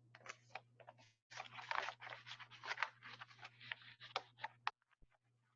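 Paper documents being handled and shuffled: a run of short scratchy rustles that stops near the end, over a low steady hum.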